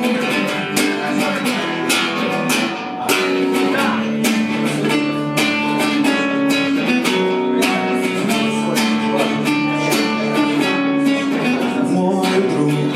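Guitar strummed steadily in an instrumental passage of a live song, with no singing.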